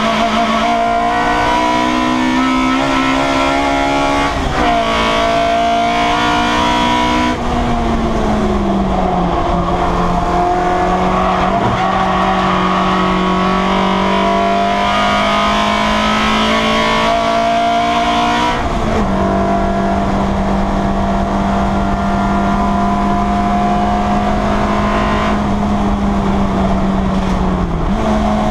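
Citroen Saxo race car's engine running hard, heard inside the stripped cabin. The engine note climbs slowly and drops sharply a few times as the revs change.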